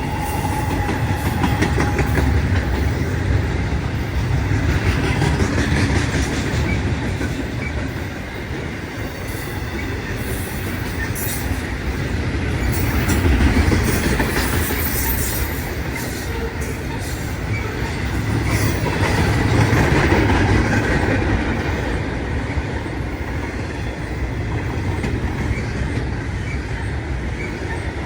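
A train's cars rolling past, wheels clattering over the rail joints, the sound swelling and easing in waves.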